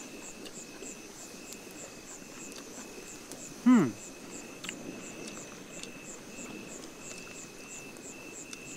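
Night insects chirping steadily in a rhythmic chorus at two high pitches. About four seconds in there is a short, louder vocal sound that falls in pitch.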